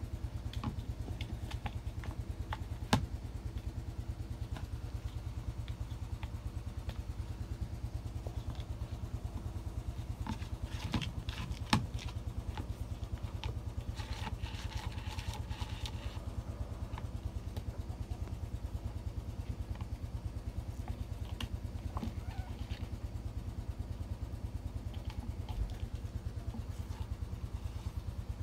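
A steady low rumble with a fast, even pulse, joined by a few sharp clicks and knocks, the loudest near the start and two close together about midway.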